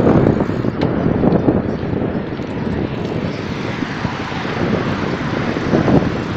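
Wind buffeting a phone microphone while cycling: a steady, flickering low rumble.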